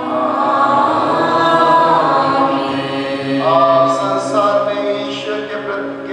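A choir singing long held chords without instruments, the chord changing every second or two.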